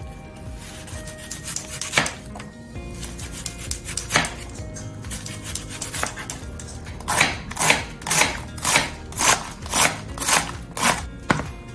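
Chef's knife cutting onion and then lettuce on a wooden cutting board: a few separate knocks of the blade on the board, then a run of about ten quick chops, about two a second, near the end.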